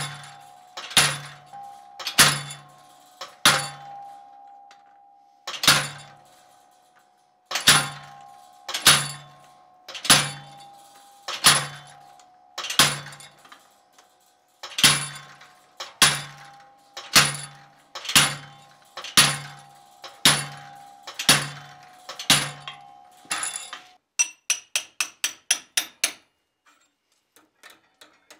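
Hand hammer striking red-hot steel bar on an anvil, about one and a half blows a second, each blow leaving the anvil ringing, with two short pauses. Near the end the blows give way to a quick run of lighter, faster taps.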